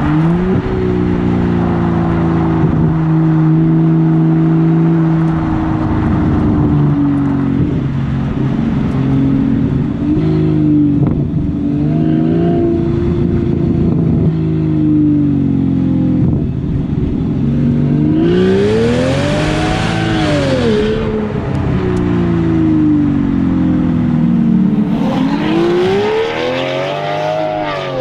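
BMW 760Li's V12 engine through a straight-piped exhaust, running loud and fairly steady under way. Late on it is revved up and back down twice, the pitch climbing to a high peak and falling away each time.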